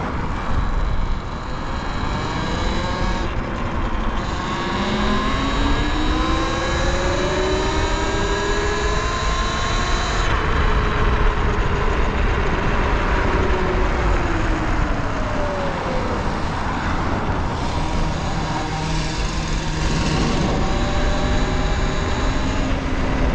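Talaria Sting R electric dirt bike's motor whining while riding, its pitch rising and falling with speed, over muffled wind and road noise.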